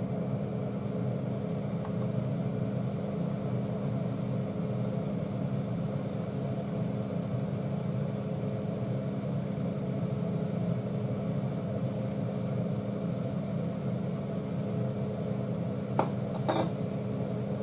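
Steady hum of a kitchen appliance fan running, with a couple of light metal clinks from a ladle near the end.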